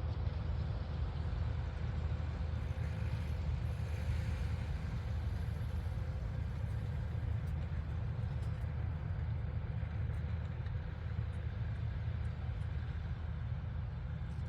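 Farm tractor's engine running steadily, a low, even drone with no change in speed.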